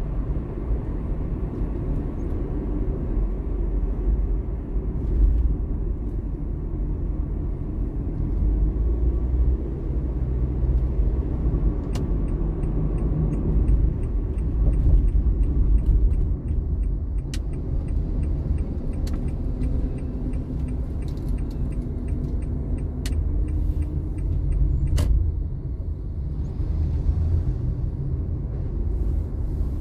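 A car driving, heard from inside the cabin: a steady low rumble of engine and road noise. From about twelve to twenty-five seconds in, the turn-signal indicator ticks evenly at about two a second, with a few sharper clicks among the ticks.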